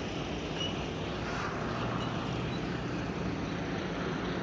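Steady low drone of a Greyhound bus's diesel engine idling.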